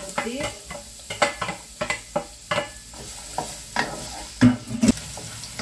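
Chopped shallots and garlic sizzling in hot oil in a wok, stirred with a wooden spatula that scrapes and knocks against the pan at an irregular pace. The loudest knocks come about four and a half seconds in.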